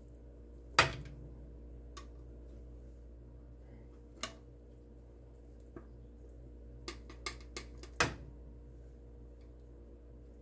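Metal utensils clinking against a plate and roasting pan: a loud clink about a second in, a few lighter ones, a quick cluster around seven seconds and another loud clink at eight, over a steady low hum.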